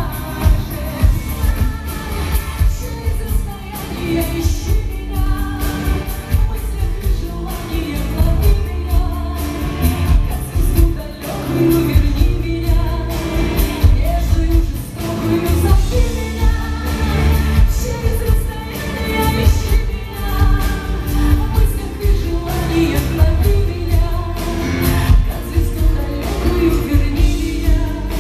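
Live pop music: a woman singing over a band with heavy bass and a steady beat.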